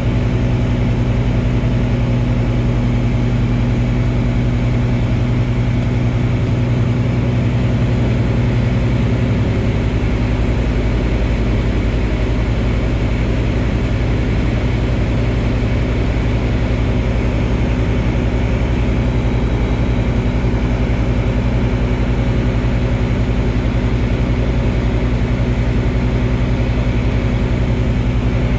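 Pipistrel Virus light aircraft's piston engine and propeller heard from inside the cockpit in cruise flight: a steady, loud drone. The tone shifts slightly about ten seconds in.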